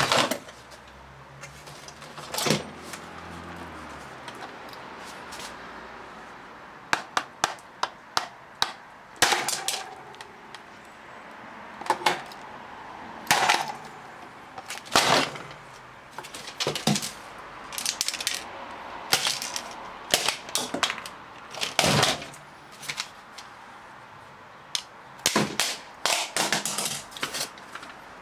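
Irregular sharp clicks and knocks, some single and some in quick clusters, like hard plastic parts and tools being handled while a robot vacuum is worked on.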